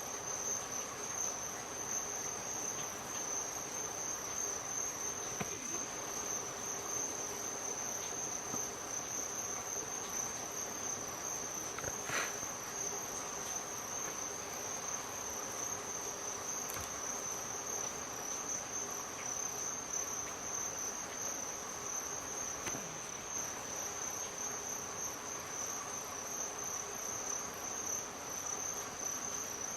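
A steady, high-pitched insect chorus trilling without a break, with fainter steady tones underneath. A single sharp click sounds about twelve seconds in.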